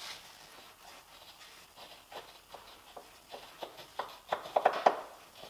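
Light clicks and knocks of metal parts being handled and worked loose at a van's rear suspension strut, sparse at first and coming more often in the last second or so.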